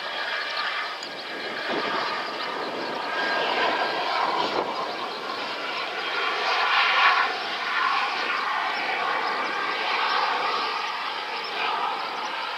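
Mitsubishi F-2 fighter's single F110 turbofan jet engine running as the jet moves along the runway: a steady whine over a rushing noise that swells and eases slightly.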